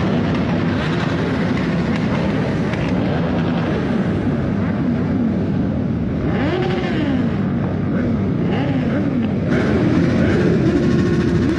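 Motorcycle engine revving, its pitch climbing and dropping again and again over a dense, steady rumble, then holding one pitch near the end.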